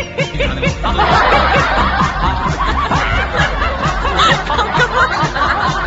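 Many voices laughing at once, a dubbed laugh track, over background music with a steady low beat; the laughter thickens about a second in.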